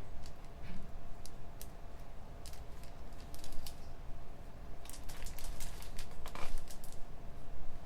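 Computer keyboard typing: scattered keystrokes, then a quick run of them about five seconds in, over a steady low room hum.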